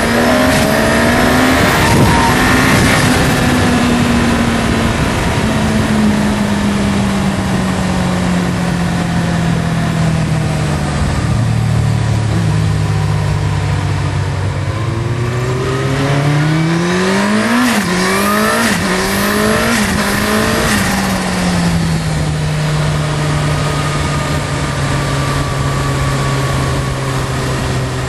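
A high-performance engine running hard: its pitch falls and settles, then about two-thirds of the way through climbs several times in quick steps, each cut by a sudden drop as in gear changes, before steadying again.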